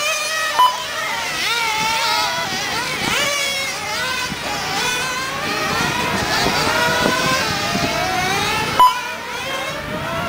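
Several 1/10 scale nitro on-road RC car engines running at high revs, many overlapping pitches rising and falling as the cars accelerate and brake around the track. A short electronic beep sounds about half a second in and again near the end.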